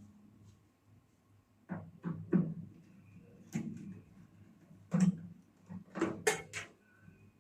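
A series of short clicks and knocks from handling a Sharp microwave's metal casing and its screws while the outer cover is taken off. The blows come singly and in small clusters, with a quick run of three or four near the end.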